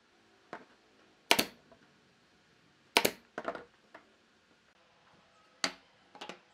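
Small wooden pieces set down on a wooden workbench and shifted by hand: a handful of sharp, irregular wooden knocks, the loudest about a second in, at about three seconds with a quick run of lighter taps after it, and again near the end.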